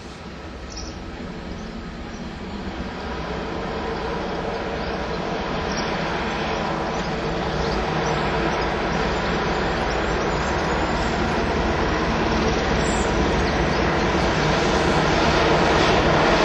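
Diesel locomotive running at low speed as it approaches and passes along the line, its engine note steady and growing louder throughout.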